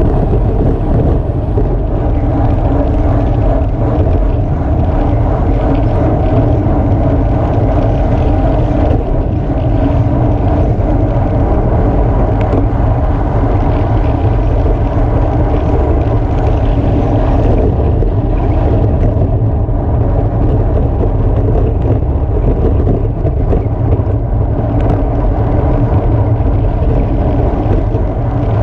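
Loud, steady wind rush on the microphone of a racing bicycle's action camera moving at about 33 mph, a deep rumble with no breaks.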